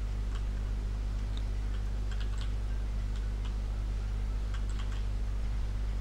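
Scattered, irregular light clicks of a computer keyboard over a steady low electrical hum.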